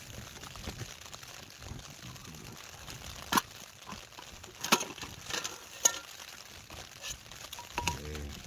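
Handling of an Alpkit BruKit stove pot: a few sharp clicks and knocks of the metal pot and its clip-on lid, three of them louder, with soft rustling between.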